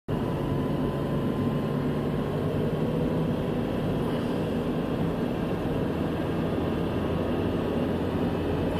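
Car driving at a steady speed, heard from inside the cabin: a steady hum of engine and tyre noise on the road.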